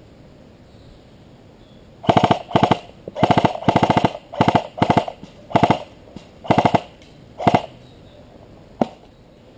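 Airsoft electric gun (AEG) firing short full-auto bursts: about nine quick bursts of rapid mechanical clicking starting about two seconds in, then a single click near the end.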